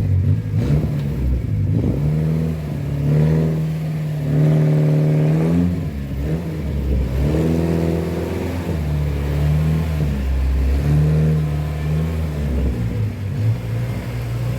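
Ford Corcel's four-cylinder engine running and being revved three times, each time rising in pitch, holding briefly and dropping back to idle.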